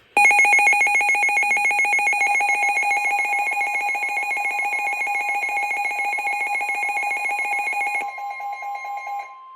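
Emergency Alert System attention signal ahead of a severe thunderstorm warning: a loud, shrill electronic alarm tone, rapidly pulsing like a ringing bell, for about eight seconds. Near the end the pulsing fades and a steady single tone takes over.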